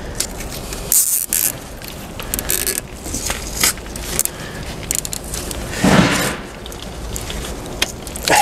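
Thick plastic cable ties being pulled tight around a truck's wiring harness: short rasping zips and clicks with handling noise, and a louder scrape about six seconds in.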